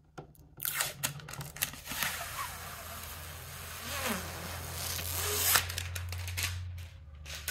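Plastic packaging rustling and crinkling as it is handled, with scattered clicks, for about five seconds before it stops.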